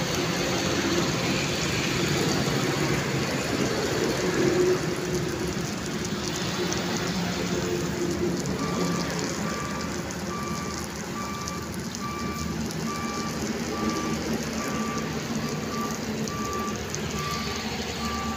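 Chicken curry simmering in an iron kadai on a gas burner, a steady sizzling hiss and bubbling as it finishes cooking. About halfway in, a high electronic beep starts repeating a little faster than once a second.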